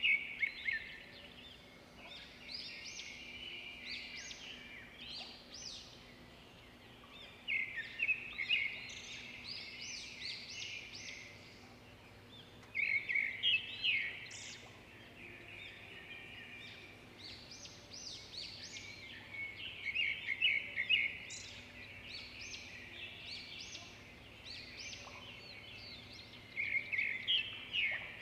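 A bird singing short bursts of quick, high chirps, a phrase every five to seven seconds, over a faint steady hum.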